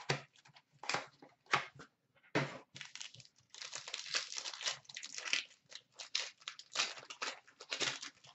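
Foil trading-card pack wrapper being crinkled and torn open by hand: irregular sharp crackles, densest around the middle.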